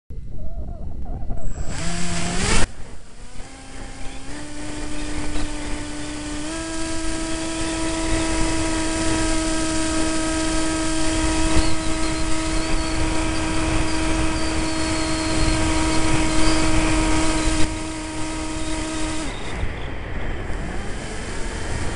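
Multiplex EasyStar's electric pusher motor whining steadily in flight, with heavy wind buffeting on the onboard camera's microphone. The motor blips briefly with a knock about two seconds in, then comes up in two steps to a steady whine and cuts off a few seconds before the end, leaving only the wind noise.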